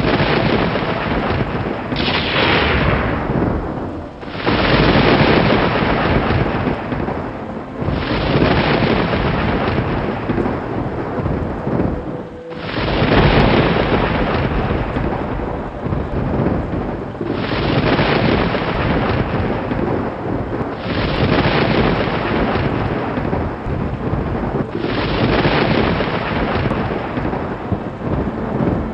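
Thunder: loud crashing peals one after another, each starting suddenly and rolling off, with a new one every four seconds or so.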